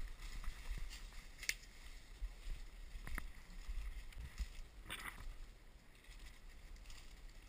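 Quiet footsteps and rustling of leaves and brush as a person walks through woodland undergrowth, with a low rumble on the microphone and a few sharper swishes of branches along the way.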